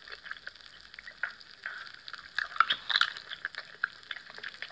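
Sizzling and crackling of food frying on a griddle: scattered pops over a soft hiss, busiest about two to three seconds in.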